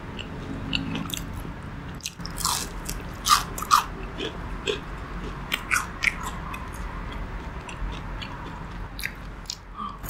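Biting into and chewing crunchy deep-fried pork with a salted batter coating, a string of sharp crunches and crackles from the crust. The loudest bites come about two to four seconds in, with smaller crackles as the chewing goes on.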